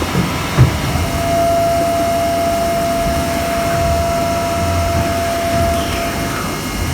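CNC milling machine running with a steady whine at one pitch from about a second in until near the end, over the machine's constant hum, as it spot drills for a bore in the carriage part. A short knock sounds about half a second in.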